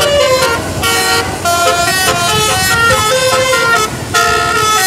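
Tour bus telolet musical air horn playing a quick tune, stepping from note to note, with two brief breaks, about a second in and near the end.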